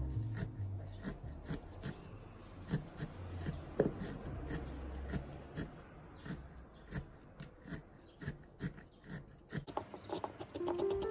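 Felting needle pen stabbing wool roving into a felting mat: repeated soft clicks, a few a second, at an uneven pace.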